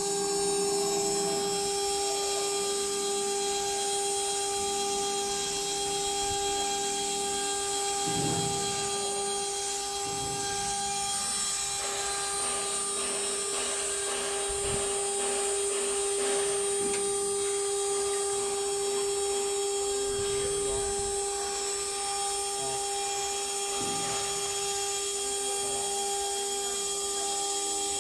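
Combined CNC router and oscillating knife cutter running and cutting, with a steady machine whine over the noise of the cut.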